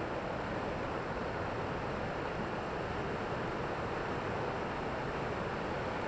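Steady rush of a waterfall plunging onto rocks, with the creek below splashing over stones.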